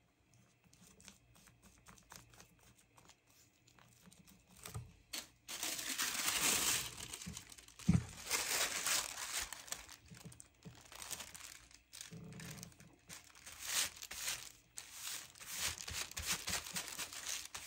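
Thin sewing-pattern tissue paper rustling and crinkling as it is pulled out, handled and smoothed flat, in repeated bursts after a few quiet seconds, with one soft thump about eight seconds in.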